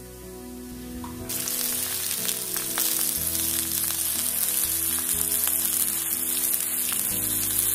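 Sliced vegetables and mushrooms sizzling in a hot grill pan: a steady, hissing sizzle that starts suddenly about a second in.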